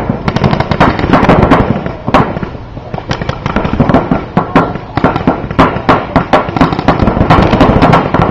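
Paintball markers firing in rapid strings of sharp pops, several guns at once, with a short lull a little over two seconds in.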